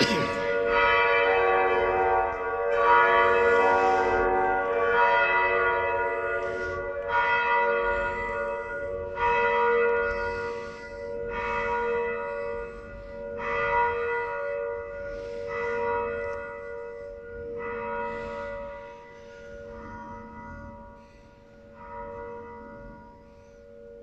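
Felsenkirche church bells ringing, heard from inside the church: a stroke about every two seconds over a long lingering hum, the strokes growing steadily fainter as the ringing dies away.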